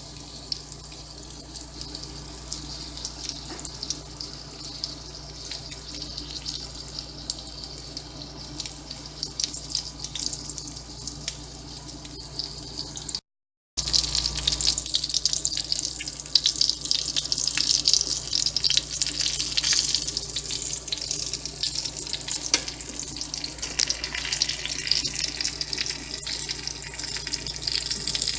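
Thin pork chops sizzling in a frying pan: a steady crackling hiss of hot fat. It breaks off for a moment about halfway through and comes back louder.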